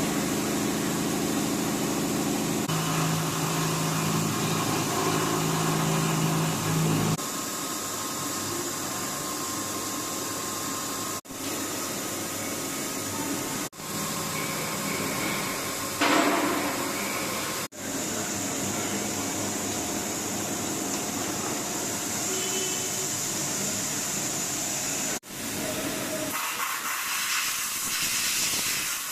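Milling machine cutting steel in 3D machining: a steady hissing cutting noise with a hum under it. The noise breaks off abruptly and shifts in tone several times.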